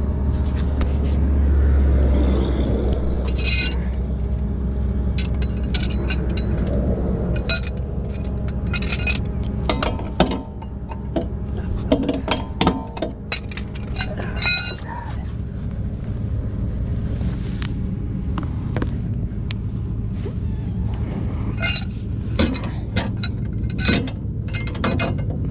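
Clusters of sharp metallic clinks from tow chain and hooks being handled and hooked up beneath a car. The steady hum of an idling tow truck engine runs underneath.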